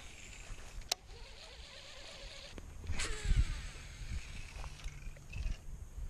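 Low rumble with a few sharp clicks and knocks, the loudest click about three seconds in, followed by a dull thump.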